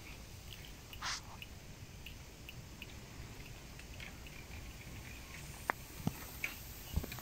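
Quiet outdoor background with faint scattered ticks, a short rustle about a second in, and a few sharp clicks near the end.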